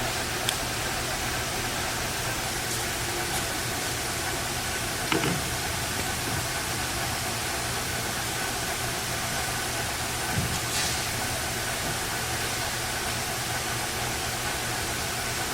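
Hardinge HC 5C chucker lathe running steadily: a constant hum and hiss with a faint high whine, broken by a few light knocks about five and ten seconds in.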